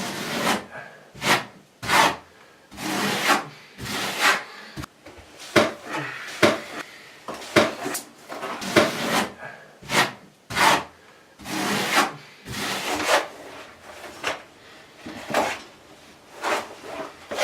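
Steel trowel scraping in repeated strokes, about one a second, with a few short knocks, as thinset mortar is spread for the shower tray.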